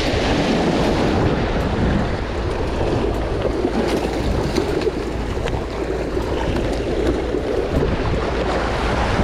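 Wind buffeting the microphone over steady surf washing against the jetty rocks.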